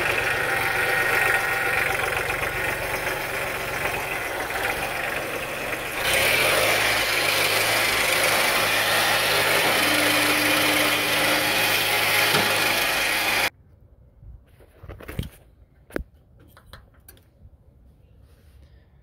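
Ford 1520 tractor's three-cylinder diesel engine running steadily, heard close up. About thirteen seconds in the engine sound cuts off suddenly, leaving near-quiet with a few light clicks and rag rustling as the dipstick is handled.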